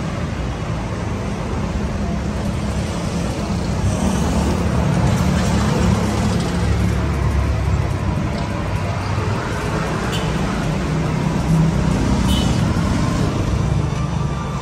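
Steady city street traffic noise, swelling slightly in the middle.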